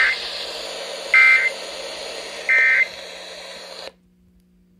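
Weather radio end-of-message signal: three short buzzy data bursts about a second apart, marking the end of the severe thunderstorm warning broadcast. Radio hiss runs under them and cuts off about four seconds in.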